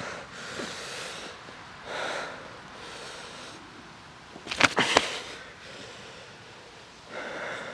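A person breathing hard and sniffing close to the microphone, a few seconds between breaths. A little past halfway comes a quick cluster of knocks and rustles from the camera being handled in dry grass, the loudest moment.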